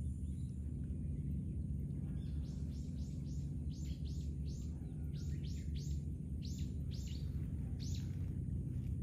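A bird calling a quick series of short, falling high notes, about three a second, starting about two seconds in and stopping near the end, over a steady low rumble.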